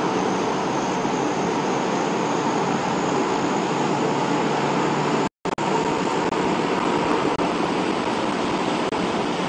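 Steady noise of aircraft engines running, with a faint high whine above it. The sound drops out for a moment about five seconds in, then resumes unchanged.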